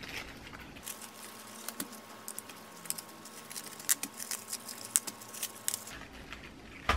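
Crisp napa cabbage leaves being snapped off the head and torn apart by hand: irregular crackling and snapping, with the sharpest snaps about four and five seconds in.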